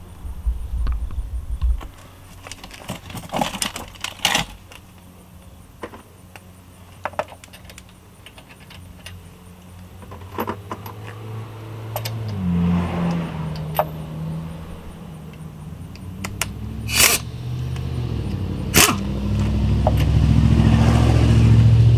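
Dewalt pneumatic impact wrench on its lowest setting, loosening a car's lug nut: a few sharp clicks of the socket and handling, short bursts of the air motor, then a steady run from about two-thirds of the way in that grows louder toward the end.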